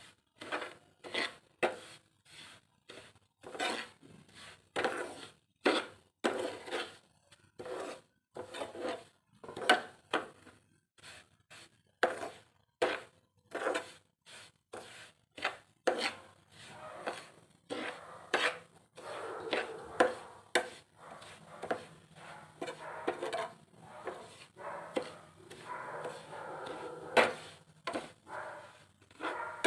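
Spatula scraping along the pan as semolina is stirred while it dry-roasts: a run of short, irregular scraping strokes, about two a second.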